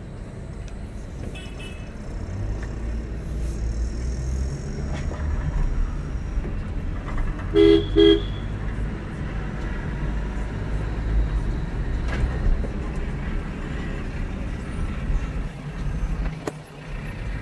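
Low steady rumble of a car driving, heard from inside the cabin, with a car horn tooting twice in quick succession about eight seconds in.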